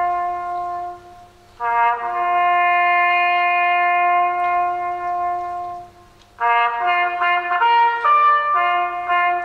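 A bugle call played on a solo brass instrument: long held notes, breaking off briefly about a second in and again about six seconds in, then a run of shorter notes stepping between pitches before another long held note near the end.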